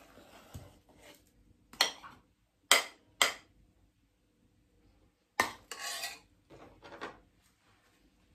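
Metal serving tongs scraping through a soft layered dessert and along a metal baking pan, with a few sharp clinks of metal and china as slices are lifted onto ceramic plates.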